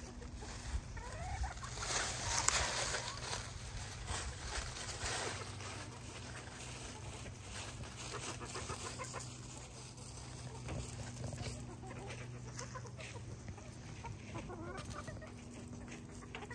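Backyard chickens clucking, with scattered light taps and a louder rustling burst about two seconds in, over a steady low hum.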